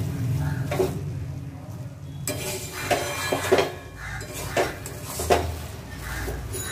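Metal spatula scraping and clinking against a metal wok as cooked rice is turned over and mixed. It comes as a string of short scrapes, about one every half second to a second, with a brief lull about a second in.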